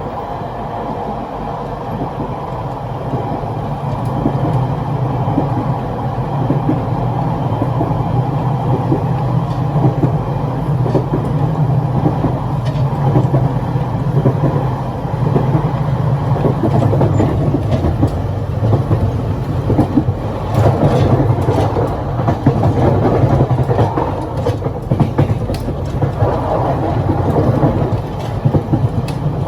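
Running noise at the gangway connection between two cars of a Taiwan Railways EMU1200 electric multiple unit: a heavy, steady rumble that grows louder over the first few seconds, with rattling and scattered sharp clacks from the wheels and joints in the second half.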